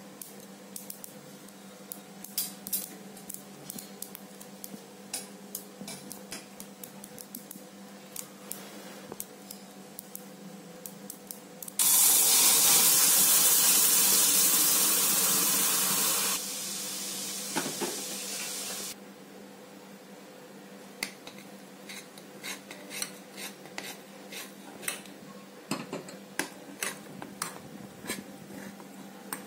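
Metal utensils clinking and scraping against pots and pans in short sharp knocks. About twelve seconds in, a loud steady hiss starts; it drops in level after about four seconds and stops about three seconds later.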